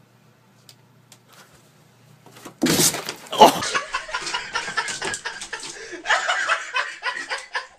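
A sudden loud crash about two and a half seconds in, followed by people laughing.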